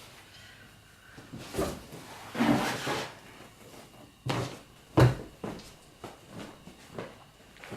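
A series of knocks and thumps, the loudest about five seconds in, with a short scraping rustle before them. This is handling noise, with things being set down or moved.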